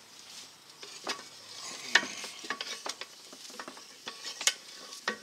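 Steel disc blades and cast spacer spools of a disk harrow gang clinking and scraping as they are handled and taken off the gang, with scattered sharp metal knocks, a few ringing briefly.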